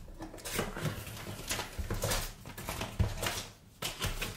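Cardboard and paper packaging rustling and scraping as it is handled: a string of short, irregular crinkles, with a brief lull near the end.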